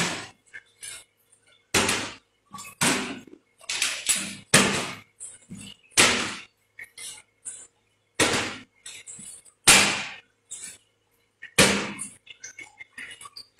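About nine loud, sharp knocks on a hard floor, irregularly spaced a second or two apart, each with a short ringing tail, with smaller taps in between.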